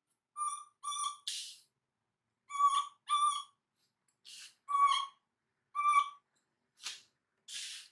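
Baby macaque giving short, steady-pitched coo calls, six in three pairs, with a few brief breathy hisses between them.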